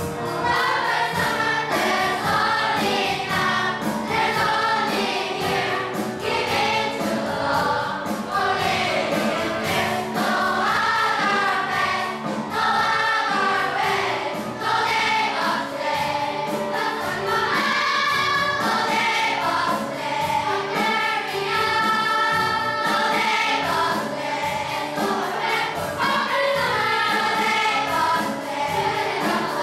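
Young cast singing together as a choir over instrumental accompaniment, a musical-theatre ensemble number.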